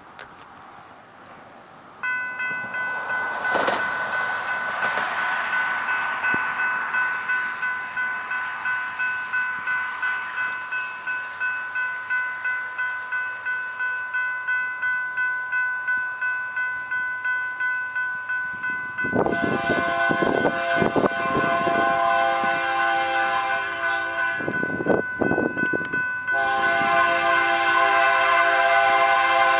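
Railroad crossing bell starts ringing about two seconds in, pulsing about twice a second as the crossing activates. From about nineteen seconds a BNSF freight locomotive's multi-chime air horn sounds its crossing signal over the bell, in several blasts, the last one held.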